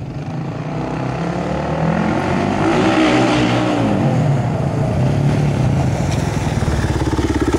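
Polaris Predator 500 quad's single-cylinder four-stroke engine breathing through an aftermarket CRD exhaust, growing louder as the quad comes closer. Its pitch rises and falls with the throttle about three seconds in, then it runs steadily.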